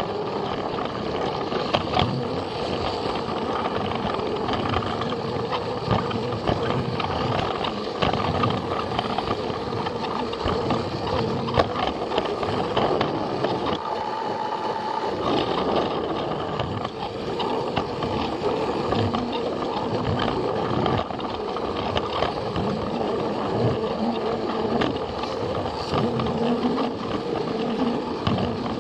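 Battery-powered Plarail toy train running steadily along plastic track: a constant small-motor and gear drone with frequent clicks and rattles from the wheels on the rails.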